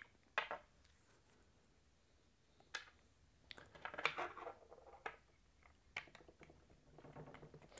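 Faint scattered clicks and taps of hard plastic on metal as a 3D-printed test block is handled and pushed onto the steel bar of an Irwin Quick-Grip bar clamp, with a small cluster of them about four seconds in.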